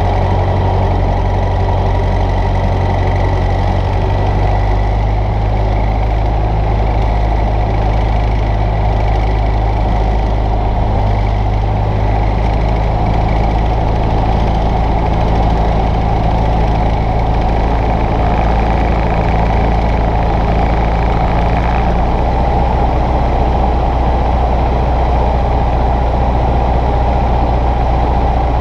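Cessna 140's four-cylinder air-cooled engine and propeller droning steadily in flight, heard inside the small cabin with the rush of airflow. The note shifts slightly about three-quarters of the way through.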